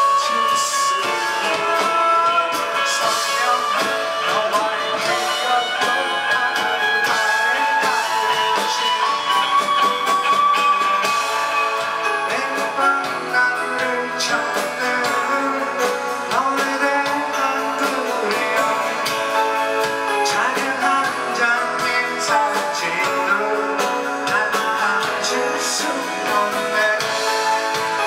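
Live band playing a guitar-led indie rock song with singing.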